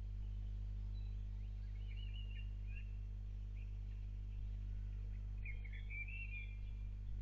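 Small birds chirping in short, high, scattered calls, in bursts around two seconds in and again near the end, over a steady low hum.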